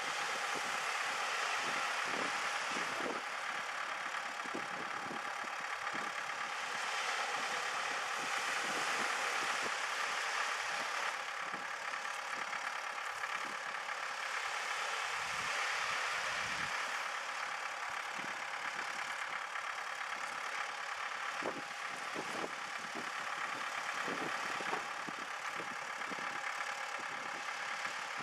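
Beach-launch tractor engine idling steadily, over the wash of small waves breaking on the shore, which swells and fades every few seconds.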